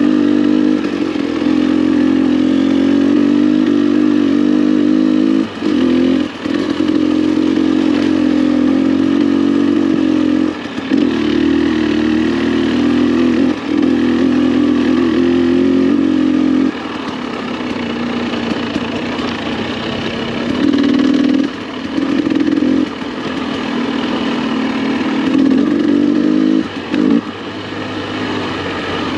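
Off-road motorcycle engine running under throttle, with short dips every few seconds as the throttle is rolled off and back on. The engine runs softer for a few seconds in the middle before picking up again.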